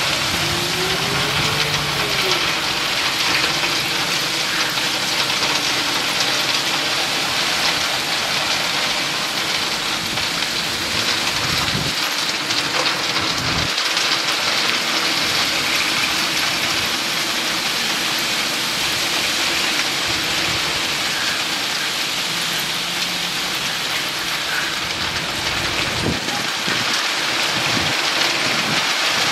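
Crushed stone pouring out of a steel tipper semitrailer's raised body: a steady rushing hiss of gravel sliding and spilling onto the heap. The truck's diesel engine runs underneath, driving the tipping hydraulics.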